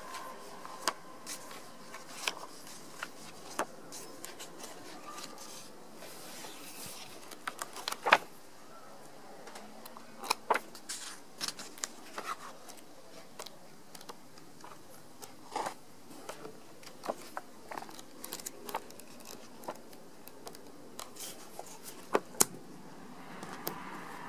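Pages of a hardback photo book being turned and handled by hand: scattered sharp paper snaps, flicks and short rustles at irregular intervals.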